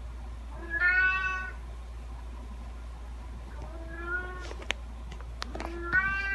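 Domestic cat meowing three times: a loud meow about a second in, a softer one a little past the middle, and another starting near the end. A few short clicks fall between the last two meows.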